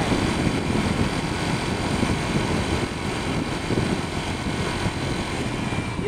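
Honda Click 125 scooter on the move: a steady, fluctuating rumble of engine and road noise with wind buffeting the microphone.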